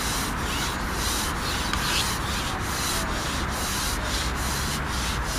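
Carbon fishing pole sliding through the angler's hands as it is shipped out, a continuous rubbing with about two strokes a second as he feeds it back hand over hand.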